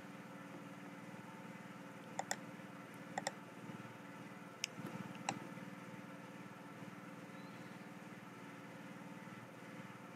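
A few sharp clicks from working a computer, several in quick pairs, between about two and five seconds in, over a faint steady low hum.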